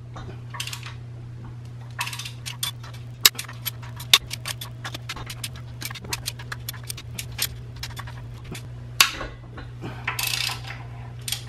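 Breaker bar and long head-bolt socket working the cylinder head bolts of a BMW M50 engine: a run of short metallic clicks and clinks, with louder ones about three seconds in and again about nine seconds in, and a brief clatter near the end.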